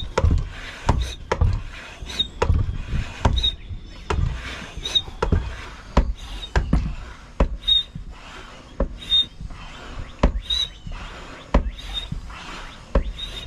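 Hand-operated oil extractor pump being worked stroke after stroke, sucking engine oil up from the oil pan of a Crusader 6.0 marine inboard through the dipstick tube. The strokes make a regular run of knocks, with a short high squeak about every second and a half.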